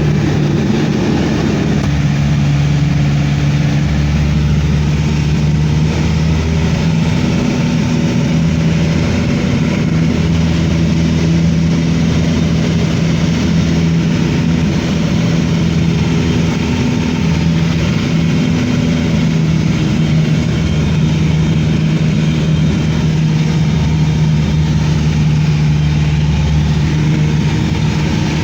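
Steady, loud drone of a passenger airliner heard from inside the cabin: engine hum under a constant rush of noise, unchanging throughout.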